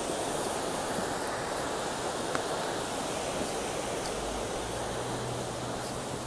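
Floodwater of a swollen river rushing fast and turbulent past a concrete bank, a steady, even roar of water.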